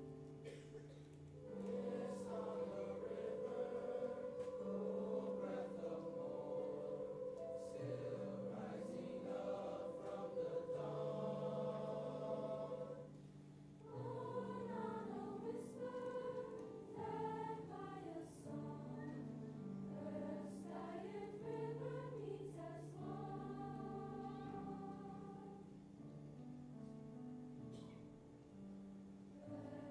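Mixed teenage choir singing a slow song in sustained parts, with a short break in the sound about halfway through.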